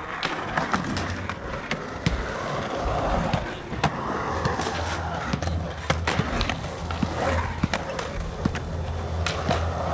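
Skateboard wheels rolling and carving on the smooth concrete of a pool bowl: a continuous rumble, dotted all through with sharp clicks and knocks.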